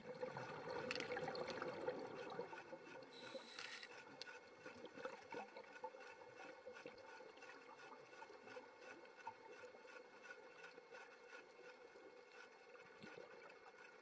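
Faint underwater sound from a camera on a coral reef: a watery hiss full of fine crackling clicks over a steady low hum, a little louder in the first couple of seconds.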